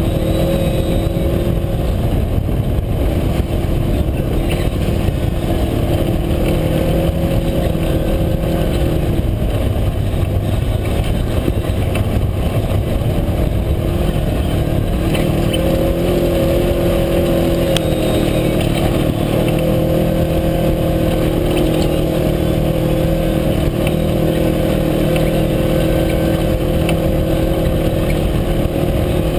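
UTV engine running under way at a fairly steady speed, its pitch rising and falling slightly, over a constant loud noise of the ride.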